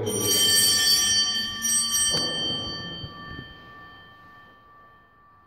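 Small hand-rung altar bells: a cluster of bells shaken at once, struck again about two seconds in, then ringing on and fading away over several seconds.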